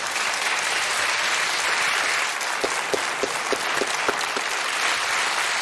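Studio audience applauding, a steady even clapping. A few louder single claps stand out in the middle.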